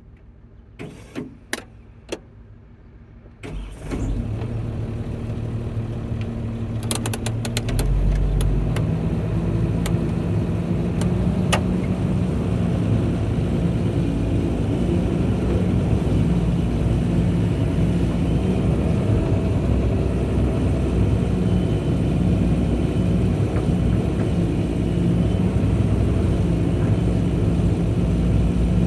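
Excavator engine starting about three and a half seconds in after a few clicks, running steadily, then speeding up around eight seconds and holding at the higher speed.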